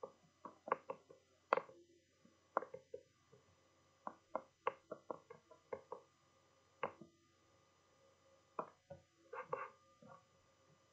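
Irregular light clicks and taps, several in quick clusters with short pauses between, over a faint steady room hum.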